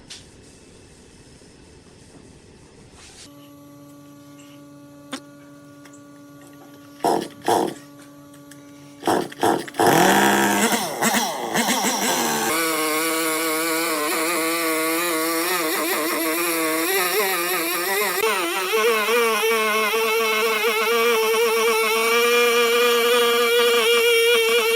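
Background music: held droning tones with a few sharp hits, then from about ten seconds in a loud melody with strong, wavering vibrato.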